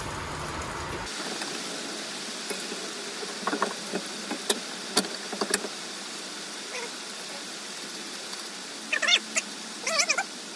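A few sharp metal clinks of steel nuts and tools being handled while nuts go back onto the caravan axle's leaf-spring U-bolts. Near the end come several short, wavering animal calls.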